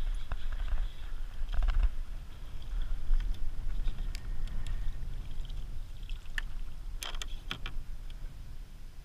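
Handling noise in a plastic kayak: light water lapping, with scattered knocks and clicks of the paddle and gear against the hull over a low steady rumble. A cluster of sharper clicks comes about seven seconds in, as a weed-tangled bass is grabbed and lifted aboard by hand.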